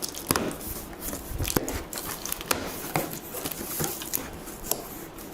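Cardboard box and packaging being handled and opened: irregular rustling and crinkling with many sharp clicks and taps.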